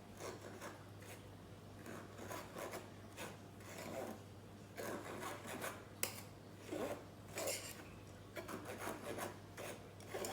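Gram flour (besan) being sifted through a mesh sieve: faint, irregular rubbing and scraping strokes, roughly two a second, as the flour is worked through the mesh to break up lumps.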